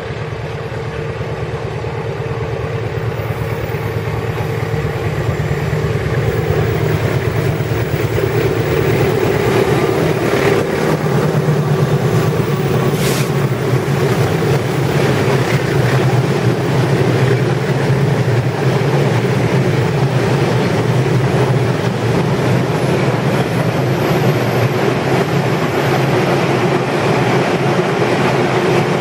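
Diesel locomotive hauling a container freight train, growing louder as it approaches over the first ten seconds or so, then a steady rumble of wagon wheels rolling over the rails as the container flatcars pass.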